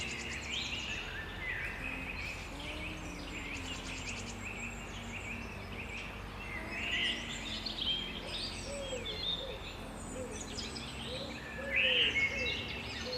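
Forest bird chorus: many songbirds chirping, whistling and trilling over one another, with one louder call about 12 seconds in.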